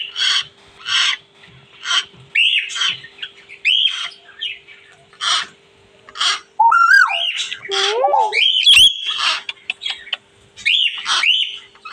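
Hill myna calling: a run of short harsh squawks mixed with whistled rising glides, which the owner takes for the bird mimicking a koel's call.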